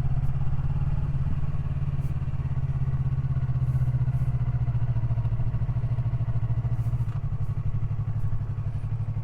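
Yamaha R3's 321 cc parallel-twin engine idling steadily at an even pitch, easing slightly about seven seconds in.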